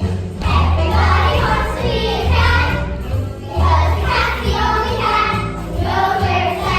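Children singing a song from a stage musical over instrumental accompaniment with a bass line that moves in long held notes.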